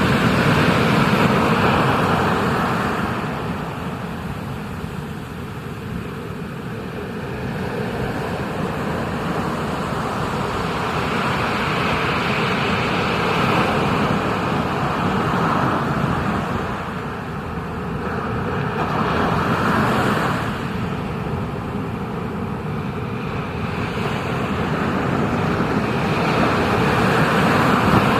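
Ocean surf: a steady rush of breaking waves and moving water, swelling and easing every several seconds.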